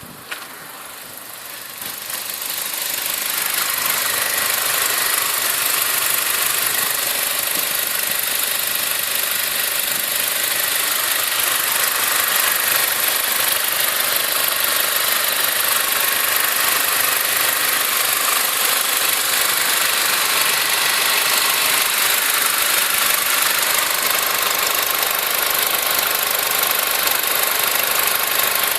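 Audi A4 B6's 2.0-litre ALT four-cylinder petrol engine running steadily, louder over the first few seconds and then even, with a sound the owner hears as out of place.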